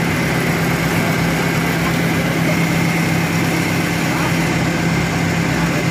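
Drag-racing pickup truck engine idling steadily, with no revving. A thin, steady high tone runs over it.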